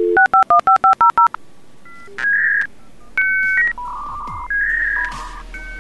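Dial-up modem connecting: a quick run of about eight touch-tone dialing beeps, then the handshake of steady whistles and hissing screeches as the modem negotiates the connection.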